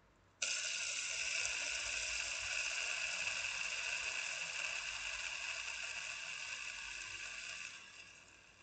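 Octopus pop-it hex fidget spinner whirring on its centre bearing after a flick: the whirr starts suddenly, holds steady and slowly fades as it spins down, then drops sharply near the end.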